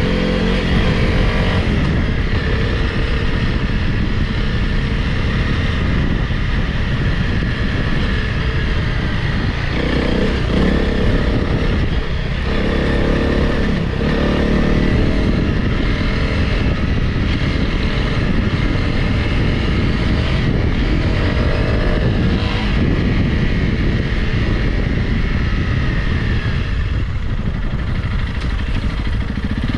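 Honda CRF Rally's single-cylinder engine running while the motorcycle is ridden off-road, the revs rising and falling.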